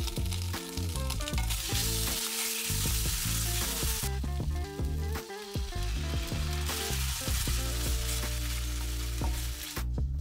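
Vegan chicken pieces sizzling in barbecue sauce in a frying pan as they are stirred with a wooden spatula. The sizzle swells loudly twice, about two seconds in and again around seven seconds in, as liquid goes into the hot pan. Background music plays underneath.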